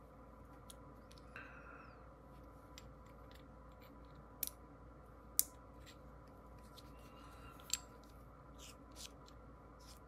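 Scattered light clicks and taps of small fidget-toy parts being handled and fitted together by hand, three sharper clicks standing out in the middle.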